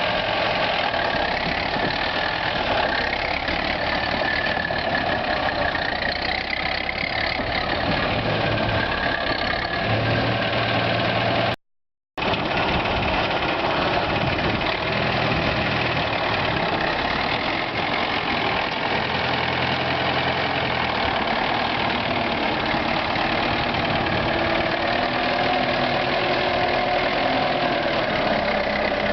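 T-74 crawler tractor's diesel engine running steadily, its pitch drifting slightly; the sound cuts out completely for about half a second near the middle.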